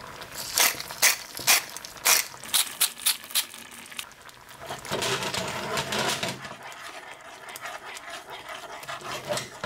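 Hand pepper mill grinding white pepper over a pan of cream sauce: a run of irregular crunching clicks for the first three seconds or so, then softer sounds as the sauce is stirred in the pan.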